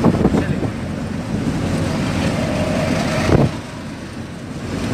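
Cabin noise of a car driving at speed: a steady rush of engine and road noise that drops suddenly to a quieter level about three and a half seconds in.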